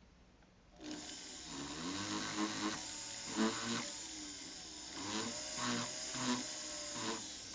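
A jeweler's small rotary power tool starts about a second in and runs with a hiss and a motor hum that rises and falls in pitch as its speed and load change, with several brief louder swells where it bears on the freshly sized gold ring.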